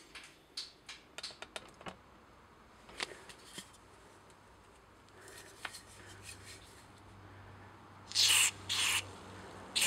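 Light clicks and scrapes of small metal carburetor parts being handled. Near the end, three short hissing blasts from an aerosol can fired through a thin red straw into a port of the Briggs & Stratton carburetor body, the first two longest, blowing out its passages.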